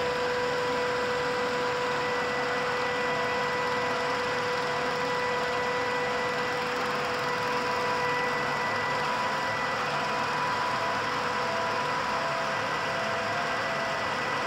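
GIDUE MASTER Combat flexographic label press running, with its rewind roll turning: a steady mechanical hum and hiss with a constant whine over it.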